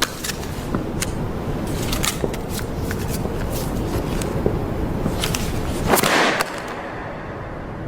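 Folded paper ddakji tiles being handled and slapped down to flip one another. There are several sharp papery smacks and clicks, with a louder smack about six seconds in.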